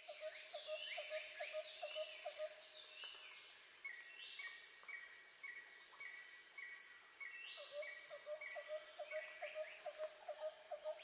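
Faint bird and insect calls: repeated falling chirps, a regular pulsing call about twice a second, and a quick ticking trill, all starting abruptly.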